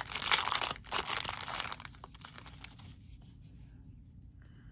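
Clear plastic wrapping crinkling and tearing as it is pulled open by hand, busy for about two seconds and then dying away.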